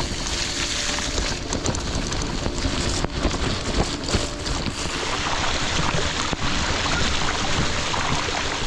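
Heavy rain and wind noise on the microphone: a dense, steady rush with many small crackles of drops hitting close by.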